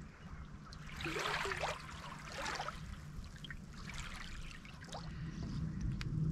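Small wavelets lapping and trickling over stones and seaweed at the water's edge, in a few soft washes.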